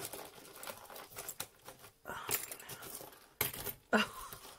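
Small metal costume-jewelry pieces, tangled earrings among them, clicking and clinking against each other as they are handled and pulled apart, with some crinkling rustle.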